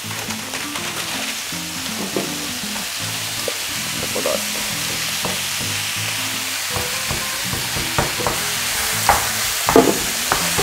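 Minced meat sizzling in a hot frying pan, seared on raised heat, with a steady hiss and a few light clicks.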